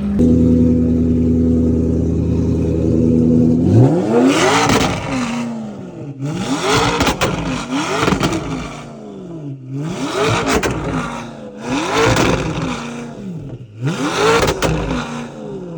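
A car engine idling steadily, then revved hard repeatedly, each rev climbing and falling back in pitch with a loud exhaust rasp at the top.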